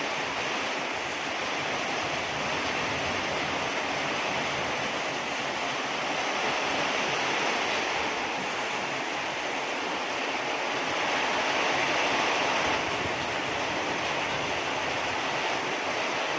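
Heavy storm rain pouring down, a steady rushing hiss, with wind, swelling a little louder partway through.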